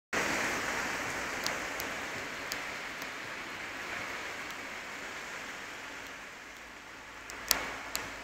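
Heavy rain pouring steadily, with scattered sharp taps of drops or debris hitting something close by; two louder taps come near the end.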